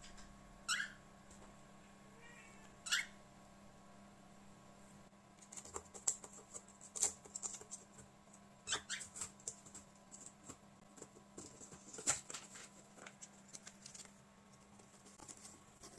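Cockatiel giving two short, harsh, high defensive calls, then a long irregular flurry of sharp clicks and taps with a few more calls mixed in, as it fends off an intruder in its territory.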